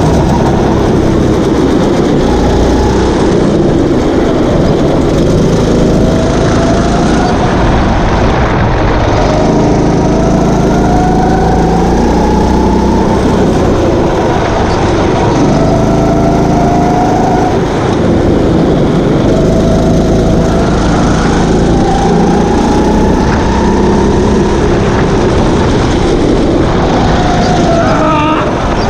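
Kart engine running hard, its pitch climbing repeatedly under acceleration and falling away as the throttle is lifted, about six times over the stretch.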